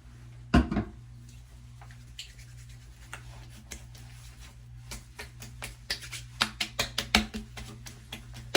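Hands handling a bottle of face toner and applying it: a sharp knock about half a second in, then scattered light clicks and taps that come quickly and irregularly from about five seconds on.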